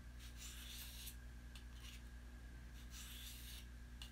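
A knife blade sharpened by hand: two faint scraping strokes of the edge, about two and a half seconds apart, over a low steady hum.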